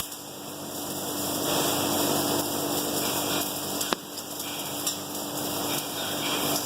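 Oxyacetylene welding torch flame hissing steadily as oxygen is balanced in to get a neutral flame, with a single sharp click about four seconds in.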